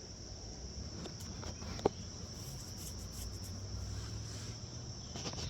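Crickets trilling steadily in a high, even chorus, with a single sharp click nearly two seconds in.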